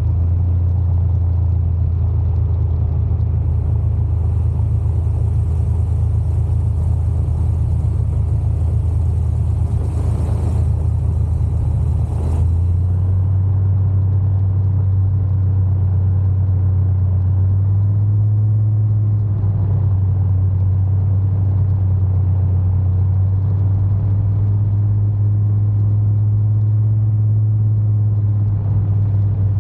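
Paramotor's Polini Thor 130 single-cylinder two-stroke engine droning steadily in flight, with wind rumbling on the microphone. The engine's pitch shifts slightly a couple of times.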